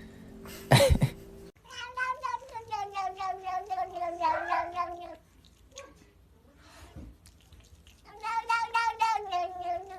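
Cat yowling: two long, wavering, drawn-out calls, the first lasting about three and a half seconds and the second about two, each sliding slightly down in pitch. A short sharp noise comes about a second in, before the first call.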